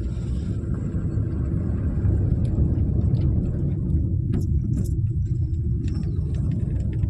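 Low road and engine rumble inside a moving car's cabin, growing a little louder a couple of seconds in, with a couple of light clicks about halfway.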